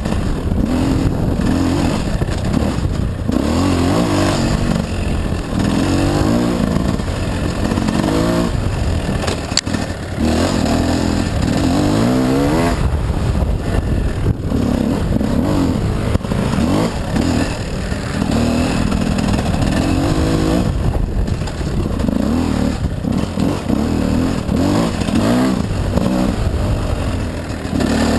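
Gas Gas dirt bike engine being ridden on a trail, its pitch rising and falling over and over as the throttle is opened and closed and the gears change.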